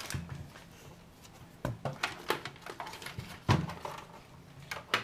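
A few knocks and clunks from the test bench frame being handled and turned over, the loudest about three and a half seconds in.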